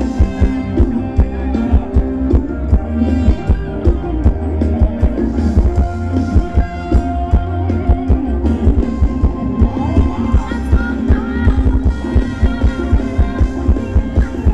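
Live band playing Thai ramwong dance music, with held melody notes over a steady drum beat.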